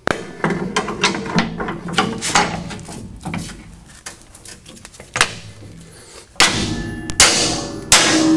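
Sledgehammer striking a steel pry bar wedged against a car's front coil spring: three loud blows near the end, each with a metallic ring, driving the spring toward its seat in the lower control arm. Before them, lighter metallic knocks and rattles.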